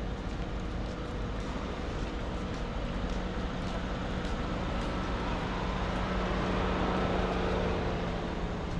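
Steady city street noise with a constant low hum running under it, swelling a little about two-thirds of the way through.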